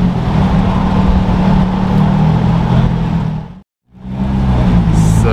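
Porsche 911 GT3 RS's naturally aspirated flat-six running at a steady low speed, loud and even. The sound fades out to a moment of silence about three and a half seconds in, then the engine note comes back.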